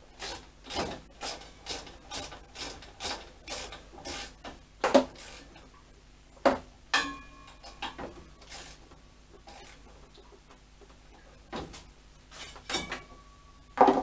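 Hand tools clamping up a motorcycle front wheel spindle in the forks. There is a run of quick, even strokes about two a second, then a few sharper metal clanks, one of them ringing briefly.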